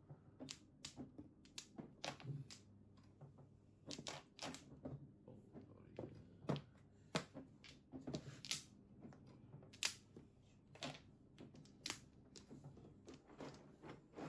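Mahjong tiles clicking and clacking as they are drawn, discarded and pushed into rows on the table. The clicks are sharp and irregular, a few a second, with two louder clacks about halfway through.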